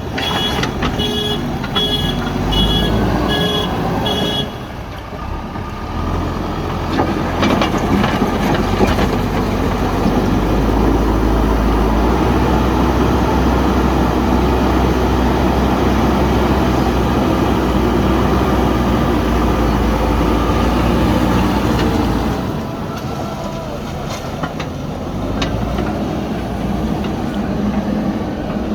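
JCB backhoe loader's diesel engine working under load, with its reversing alarm beeping about twice a second for the first four seconds. The engine then runs loud and steady for about sixteen seconds before easing off near the end.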